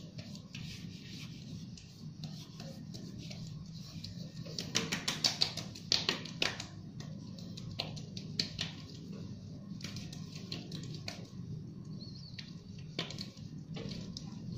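Fingertips patting and rubbing serum into facial skin: soft taps and rubs, with quick runs of pats about five and six seconds in, over a steady low hum.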